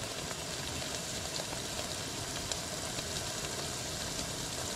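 Steady sizzling hiss of onions and tomatoes frying in oil in a pot on a portable gas stove, with a few faint pops.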